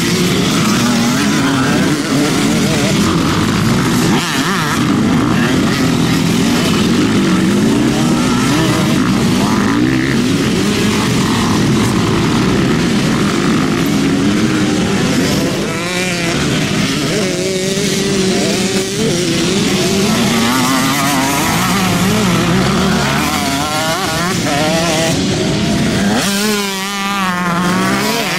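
Several motocross bikes racing past, their engines revving up and down through the gears with overlapping rising and falling pitches.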